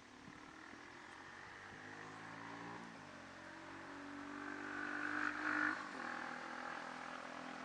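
A motor vehicle engine running, its pitch stepping up about three seconds in and dropping back about six seconds in, loudest around five seconds in.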